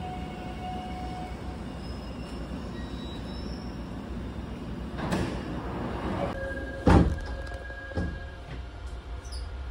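Subway train standing at the platform with a steady low rumble; the train and platform screen doors slide open with a hiss about halfway through. A loud thump follows a couple of seconds later, then a lighter knock.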